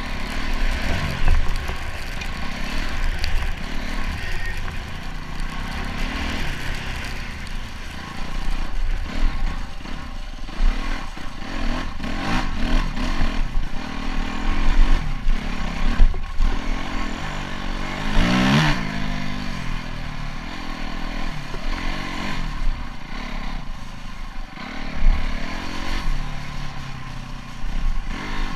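Honda CRF250X's single-cylinder four-stroke engine pulling the dirt bike along a rough track, its revs rising and falling with the throttle, with a sharp climb in revs about two-thirds of the way through. Rattles and knocks from the bike over the rough ground are mixed in.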